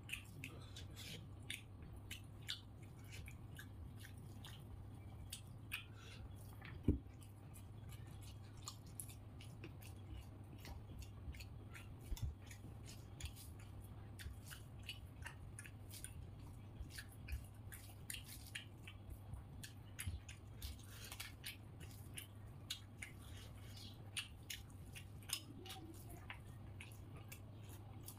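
Eating by hand: chewing and small wet clicks of fingers mixing pulao rice on a plate, many short clicks throughout with one sharper knock about seven seconds in, over a steady low hum.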